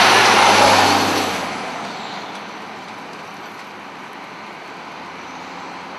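A motor vehicle passing close by, loudest at the start and fading away within about two seconds, leaving a steady low background rumble.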